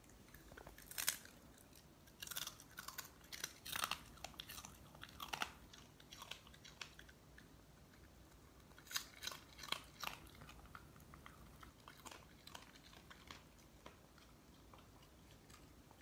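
Boston terrier biting and chewing crunchy dried pollack strips, a run of crisp crunches in two bouts, the second starting about nine seconds in and tapering off near the end.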